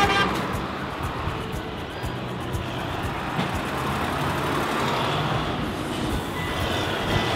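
Diesel tractor engines running as a line of large farm tractors drives slowly past close by, a steady engine rumble with tyre noise on the road.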